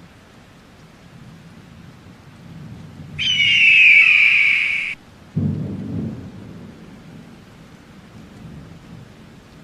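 Steady rain with thunder. About three seconds in, a loud high-pitched sound with a falling tone lasts under two seconds and cuts off abruptly. Half a second later comes a low thunder boom that fades over about a second.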